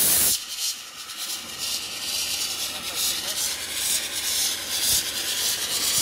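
Live steam jetting from the open ball valve of an electric steam boiler, built up to about 50 PSI at 145 °C: a loud hiss that drops to a softer, uneven hiss about half a second in.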